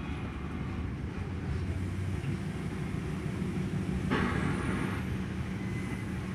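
Low, steady rumble and hum inside a passenger train coach while the train is being shunted, with a brief noisy burst about four seconds in.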